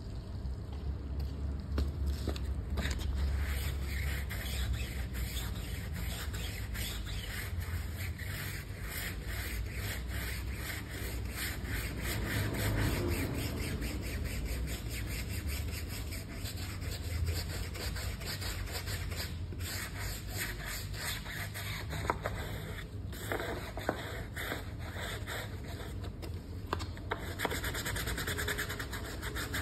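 Wheel brush scrubbing a soap-foamed alloy wheel and tyre in quick, continuous back-and-forth strokes, its bristles rubbing and scraping through the foam. A few light knocks come in the second half.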